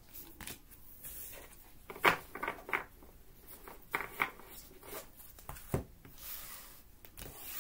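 A deck of cards being shuffled by hand: a run of short card snaps and slides, the sharpest about two seconds in, with a longer soft rustle near the end.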